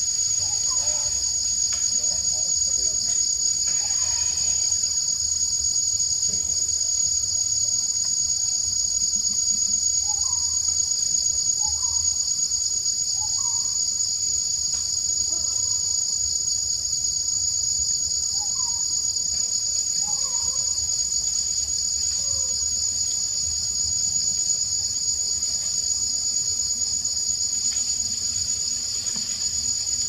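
Steady, high-pitched insect chorus drones without a break. Faint short chirping calls come now and then beneath it.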